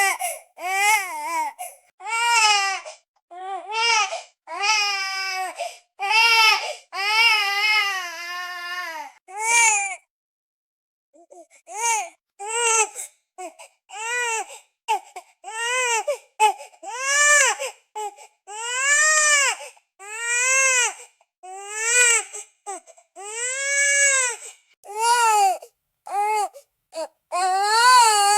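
Infant crying: a run of high-pitched wails, each rising and falling in pitch, breaking off for about a second and a half just after ten seconds in and then going on in shorter, quicker cries.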